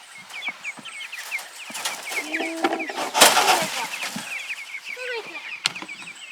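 A flock of young meat chickens peeping continuously in many short rapid chirps, with a loud rustling noise a little past three seconds in.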